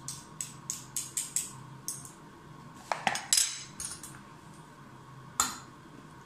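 Metal spoon clinking and scraping against a bowl as beef is stirred into its cornstarch marinade: a run of quick light clinks, a louder clatter about three seconds in, and one sharp clink near the end.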